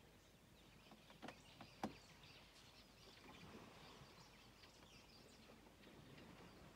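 Quiet outdoor ambience with faint chirping of small birds, broken by a few short, sharp clicks between one and two seconds in.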